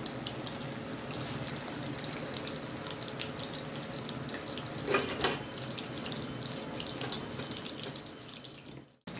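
Marinated chicken pieces deep-frying in hot oil: a steady sizzle with scattered crackles and pops. A couple of louder knocks about five seconds in, and the sound fades out and cuts off near the end.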